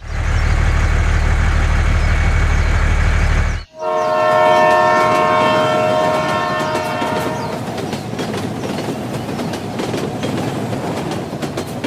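Train sounds: a steady low rumble, then after an abrupt break a train horn sounding a chord of several notes for about four seconds, followed by rattling, clattering wheels.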